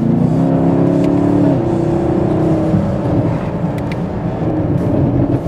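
Chevrolet Camaro SS's 6.2-litre V8 running through a paddle-shift downshift, strongest in the first second and a half, then dropping and running steadier, with a few short sharp exhaust pops from the rev-matching blips.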